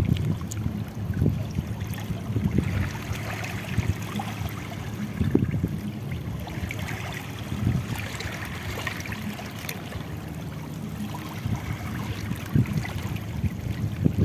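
Shallow seawater lapping and trickling along the shore, with a few short knocks and splashes.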